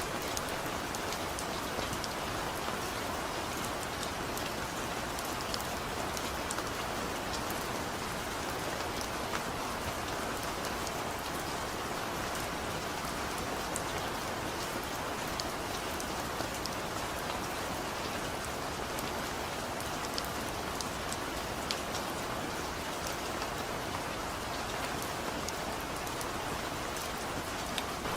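Steady rainfall with many small distinct drop ticks over an even hiss of rain.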